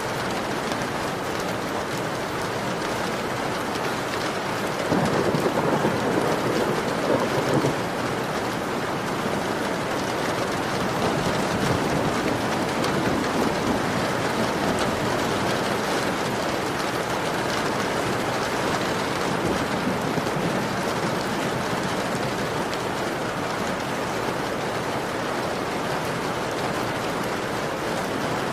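Heavy rain beating on a window pane in a dense, steady hiss. About five seconds in a deeper rumble swells up and fades away by about eight seconds.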